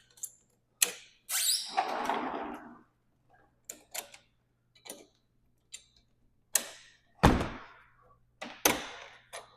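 Sliding glass door handle hardware being handled and fitted: a string of separate clicks and knocks, with a short scraping noise about a second in and a heavy thump a little past the seven-second mark.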